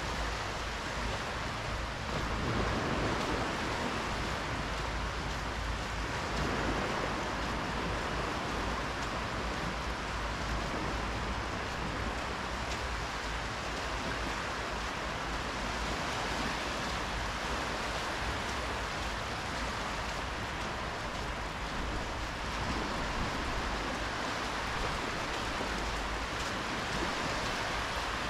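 Small sea waves lapping and washing up the sand at the water's edge, a steady rushing hiss that swells a little now and then.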